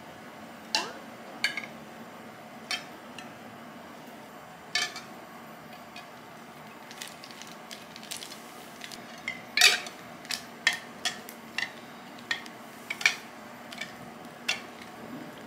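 Silicone spatula stirring hard white chocolate buttons and butter in a glass bowl: irregular light clicks and taps as the spatula and chocolate pieces knock against the glass, over a faint steady hum.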